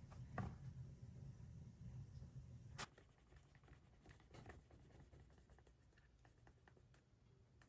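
Faint, quiet scratchy rubbing of a leather sheath's edges being burnished after sealing with Tokonole. A low hum stops with a click about three seconds in, leaving only the soft scratching.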